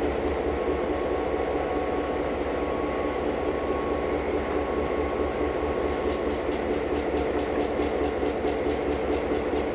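Vintage CFL diesel locomotive engine idling: a steady hum with a pulsing low end. A fast, regular ticking of about five per second joins about six seconds in.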